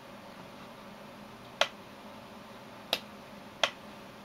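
Computer mouse button clicking: three short, sharp clicks spread over about two seconds, over a faint steady hiss.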